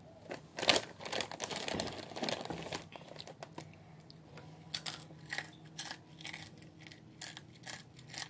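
A chip bag crinkling as it is handled, densest in the first couple of seconds, then a string of sharp, irregular crunchy clicks as the chips are bitten and chewed.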